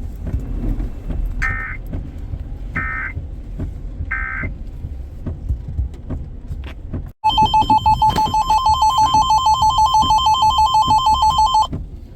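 Emergency Alert System data tones from a weather radio: three short, chirping digital bursts about a second and a half apart (the SAME end-of-message code). Then, after a brief cutout, the loud, steady 1050 Hz weather-radio warning alarm tone sounds for about four and a half seconds, wavering slightly, before stopping abruptly. A low rumble runs underneath.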